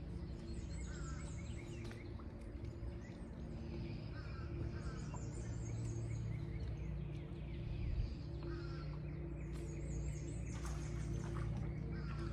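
Songbirds chirping now and then over a steady low hum.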